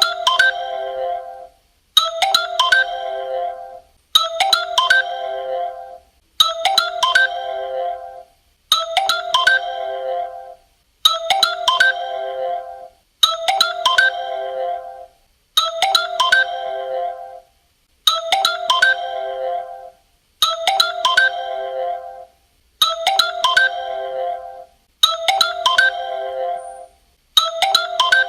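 Claro mobile carrier's official call tone: a short melodic phrase of pitched notes, repeated about every two seconds with a brief gap between repeats.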